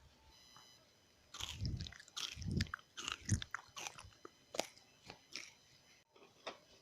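Pieces of red Indian clay being bitten and crunched between the teeth. A run of sharp, loud crunches starts about a second in, then gives way to lighter, spaced chewing crunches.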